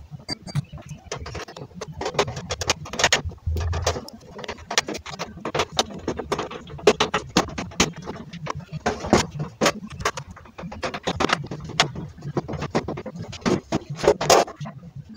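Irregular metallic clicks and knocks of a screwdriver and small parts against the sheet-metal frame of a two-burner gas stove being assembled, over a low steady hum.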